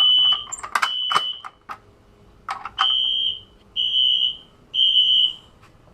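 Fire alarm sounder beeping in the temporal-three evacuation pattern: three high-pitched half-second beeps about a second apart, a pause, then three more. A few sharp clicks or knocks sound around a second in.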